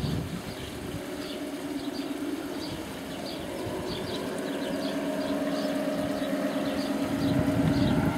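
A steady low droning hum that grows louder toward the end, with small birds chirping repeatedly over it.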